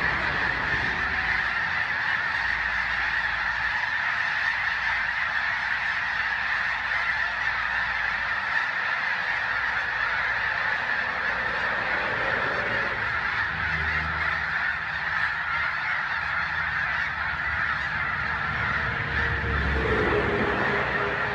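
A huge flock of snow geese calling all at once: a dense, steady din of overlapping honks with no single call standing out.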